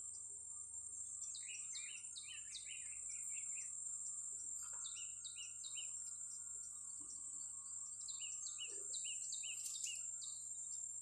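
Small birds chirping in quick runs of short, falling notes, three bursts of calls, over a steady high-pitched insect buzz from cicadas or crickets.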